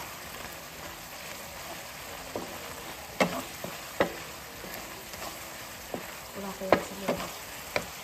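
Alamang (tiny shrimp) sizzling in oil and syrup in a nonstick frying pan while a plastic spatula stirs and scrapes through them, with a few sharp knocks of the spatula against the pan, the loudest about two-thirds of the way in.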